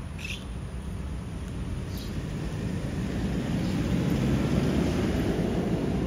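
Low road-traffic rumble of a small diesel lorry driving past, swelling in loudness through the second half.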